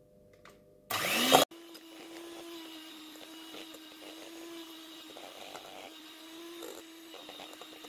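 Electric hand mixer starting up about a second in with a brief loud surge and a rising pitch, then running steadily at one pitch as it beats softened butter and custard cream together.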